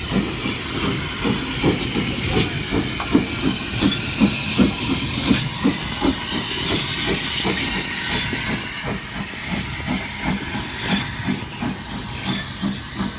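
Steam train running, with a steady hiss of steam over repeated uneven low knocks, about two or three a second.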